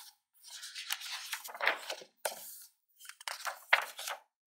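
Pages of a paperback picture book being turned by hand: paper rustling and sliding in two stretches, with a few sharp crackles.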